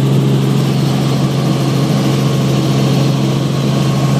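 Helicopter engine and rotor drone heard inside the cabin in flight: a steady, loud low hum with a constant hiss above it.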